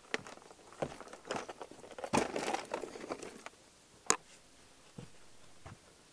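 Footsteps and handling knocks on a boat deck as a cooler is carried aboard and set down, with a stretch of rustling and crinkling in the middle and one sharp knock about four seconds in.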